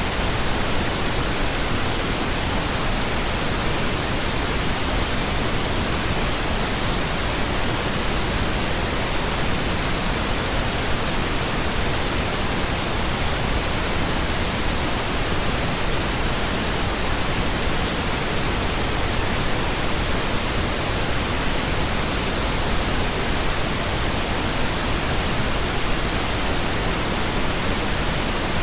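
Pink noise: a steady, even hiss spread from deep to high pitches, unchanging throughout.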